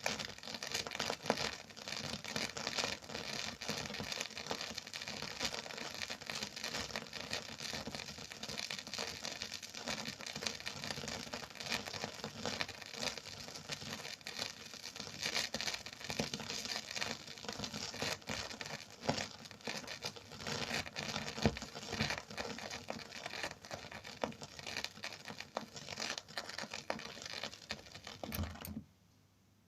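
Record surface noise: a dense, steady crackle with hiss and scattered louder pops, as from a stylus running in a dusty groove with no music. It cuts off abruptly just before the end.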